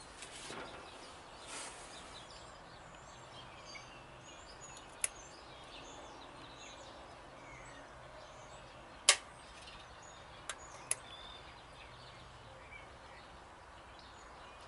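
Quiet background broken by a few sharp clicks, the loudest about nine seconds in, from handling a battery load tester clamped onto a semi truck battery during a load test.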